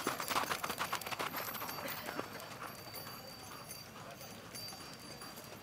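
Hoofbeats of a Chilean horse working a reining pattern: a quick run of hoof strikes, busiest in the first second and a half, then lighter.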